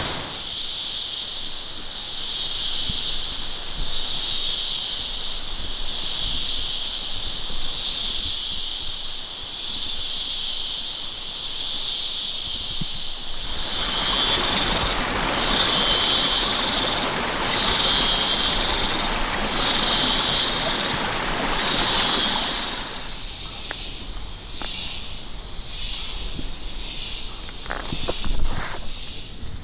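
Rushing water of a waterfall. Over it, a loud, high hiss swells and fades about every two seconds, turning into quicker, weaker pulses near the end. The water noise is strongest in the middle stretch.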